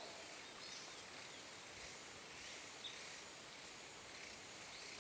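Faint rainforest ambience: a steady high-pitched insect drone, with a few short, faint chirps now and then.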